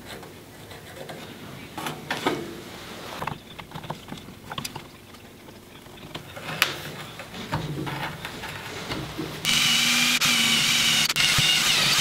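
Soft clicks and scrapes of a pencil and metal combination square marking out a wooden board. About nine and a half seconds in, a hand-held power drill with a large bit starts and runs steadily, boring a bolt hole into the wood.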